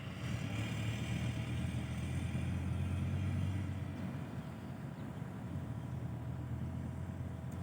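Hino Mega 500 dump truck's J07E diesel engine running with a steady low rumble, growing a little louder over the first few seconds and then easing off.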